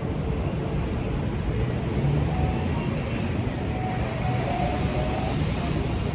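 Steady city street noise dominated by a low rumble, with a couple of faint high tones about halfway through.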